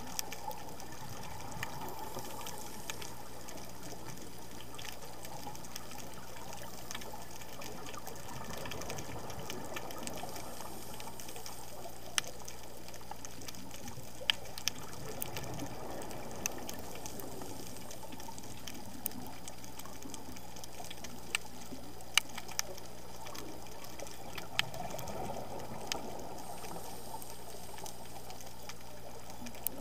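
Underwater sound through a diving camera's housing: a steady watery hiss, with a swell of a diver's exhaled regulator bubbles every seven to nine seconds, and scattered sharp clicks.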